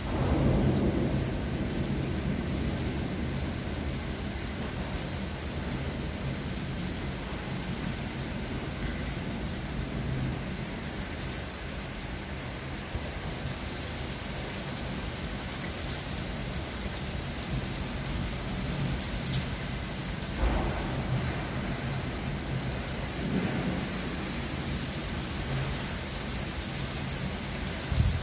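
Steady rain falling, with a roll of thunder right at the start that fades over a few seconds, and fainter low rumbles about twenty and twenty-three seconds in.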